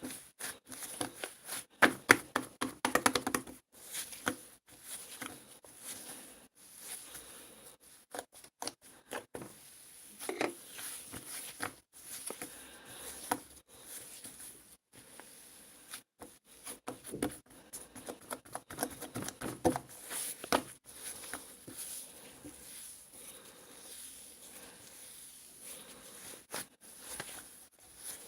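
Cloud slime being squeezed and stretched by hand: irregular soft crackles, squishes and sticky tearing sounds, coming in denser clusters about two to three seconds in, around ten seconds, and again from about seventeen to twenty seconds.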